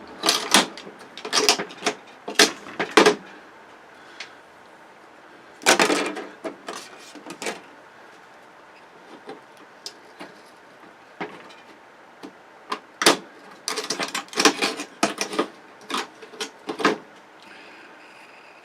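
Bursts of sharp clicks, knocks and clatter as parts of a flat-screen TV are handled and pried apart by hand. They come in three clusters: in the first three seconds, around six seconds in, and again from about thirteen to seventeen seconds in.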